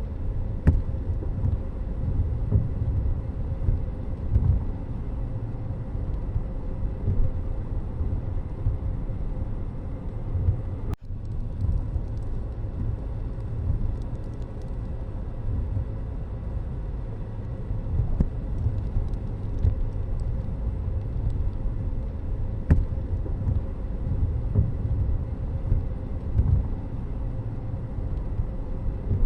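Steady low rumble of road traffic and a moving vehicle, with a brief sudden dropout about eleven seconds in.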